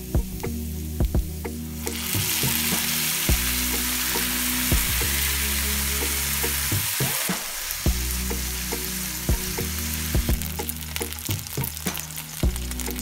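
Rice and broth sizzling in a hot non-stick frying pan, getting louder about two seconds in, with scattered clicks of the ladle and spatula against the pan as hot broth is ladled onto the toasted rice. Soft background music with sustained low notes plays underneath.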